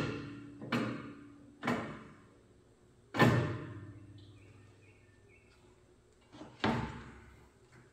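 Four separate heavy knocks, each ringing out briefly, the loudest just past three seconds in and another near the end.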